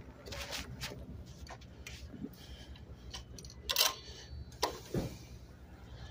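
Handling noise from hands moving over the moped's seat and handlebar: rubbing and a few sharp clicks, the loudest about four to five seconds in, over a low steady hum.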